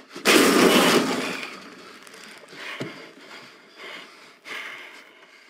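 A man slammed hard against a wall: a loud crash and clatter just after the start, under a second long, then a few faint knocks and rustles of clothing.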